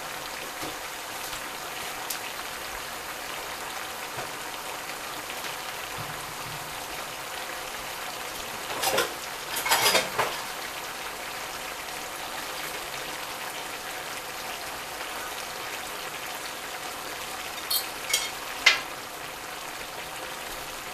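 Fried cabbage with fat back and cured ham sizzling steadily in a pot on the stove. A short clatter comes about nine seconds in, and three sharp clicks come near the end.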